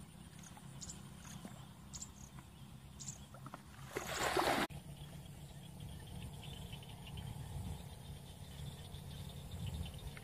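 Water splashing as a plastic bucket is used to bail out a muddy pond, with one loud splash of water about four seconds in that cuts off abruptly; faint rapid high chirping follows.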